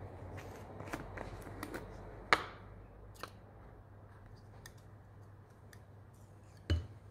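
Small clicks and taps from handling a spice jar while shaking spice into a mixing bowl, with a sharp click about two seconds in and a heavier knock near the end.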